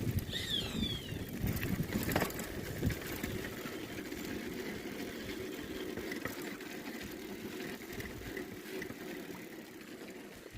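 Bicycle riding over a rough dirt trail: steady rumble of tyres and frame rattle with scattered knocks, easing off a little toward the end. A brief high chirp about half a second in.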